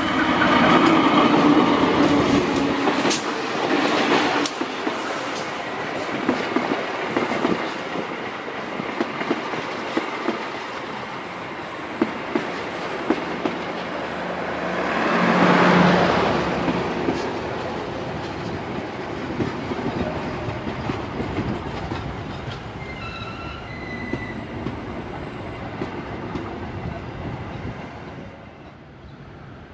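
Passenger train hauled by two diesel locomotives passing close by: the locomotives go by first, then the coaches roll past with their wheels clicking over the rail joints. A second loud swell comes about halfway through, and a brief high wheel squeal near the end before the sound fades.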